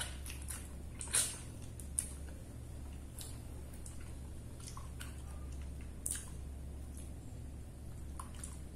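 A person eating spicy chicken feet with rice by hand: chewing and wet lip-smacking, with scattered short smacks, the loudest about a second in and again around six seconds. A low steady hum runs underneath.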